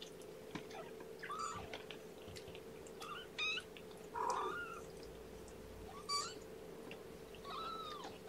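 Young kittens mewing: about five short, high mews, spaced a second or two apart, over a faint steady hum.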